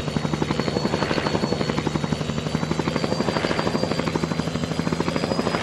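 Mi-8-family military transport helicopter flying past, its rotor blades beating in a rapid, steady rhythm over a thin, steady high turbine whine.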